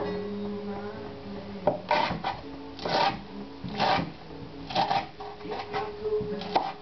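Kitchen knife chopping leafy greens on a wooden cutting board: sharp cuts, singly and in quick pairs, starting about a second and a half in and coming roughly once a second.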